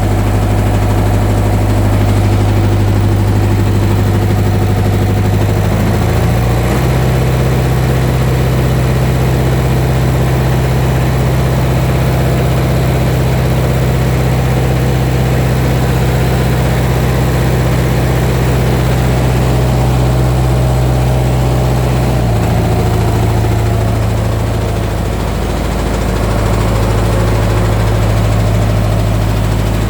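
Reconditioned Mitsubishi 4D32 four-cylinder diesel engine running on test: idling, then held at higher revs from about six seconds in, and dropping back to idle about two-thirds of the way through.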